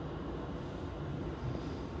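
Electric commuter train running, with a steady low rumble of wheels and running gear heard from inside the leading car.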